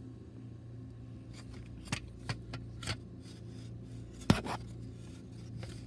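Light clicks, knocks and scrapes of a plastic smoke detector being handled and turned over, with one sharper knock about four seconds in, over a steady low hum.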